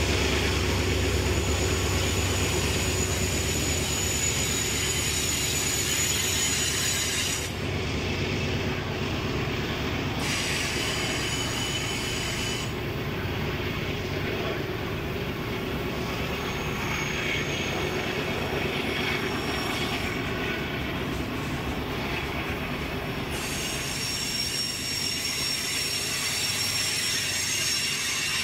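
Tank cars of an oil train rolling slowly past on a curve: a steady rumble of steel wheels on rail, with high flange squeal that comes and goes.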